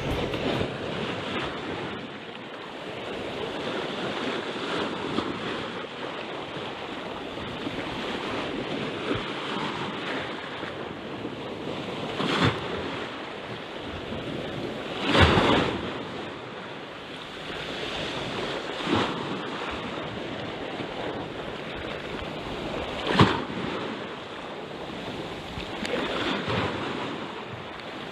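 Sea waves washing on the shore: a steady rushing noise broken by several short, louder sudden sounds, the loudest about halfway through and again about three-quarters through.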